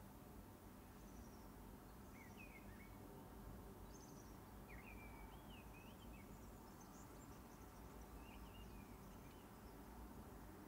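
Near silence: faint room tone with distant birdsong, short warbling chirps every couple of seconds.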